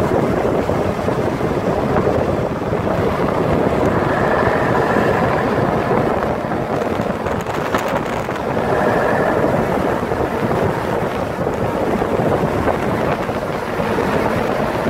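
Mercedes NG 1222 truck on the move: its diesel engine running under heavy wind noise on a microphone held outside the cab window, with tyre noise from a wet road.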